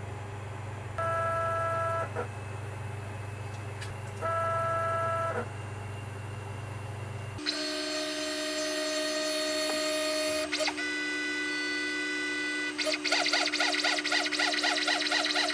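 Stepper motors of a home-built GRBL CNC router whining as the Z axis runs probing cycles against a push-button probe. There are two short moves first, then a longer steady multi-tone whine that shifts pitch partway through. Near the end it becomes a fast pulsing stepping sound of about five pulses a second.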